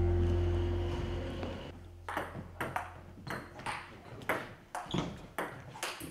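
Background music fades out over the first second and a half, then a table tennis rally: the ball clicking off paddles and table, about two hits a second.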